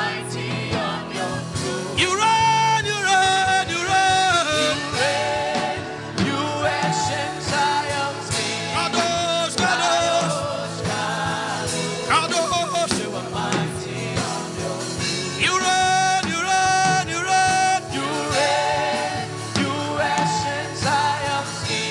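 Worship music: singing over a band with a steady beat, the congregation chanting a praise song.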